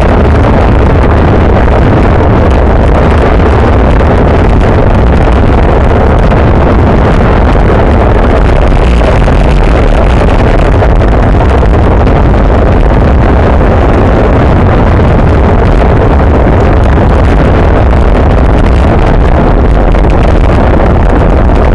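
Wind rushing over a handlebar-mounted action camera's microphone at racing speed: a loud, steady low rumble and hiss with no letup.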